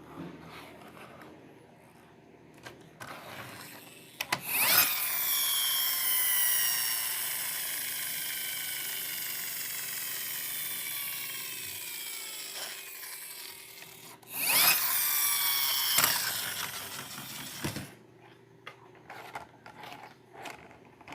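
A small motor whirring in two spells, a long one and then a shorter one, its pitch slowly falling as it runs, with light clicks of handling before and after.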